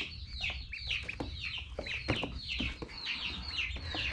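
A group of almost four-week-old Magpie ducklings peeping continuously: many short, high calls overlap, each falling in pitch. A few light knocks sound among them.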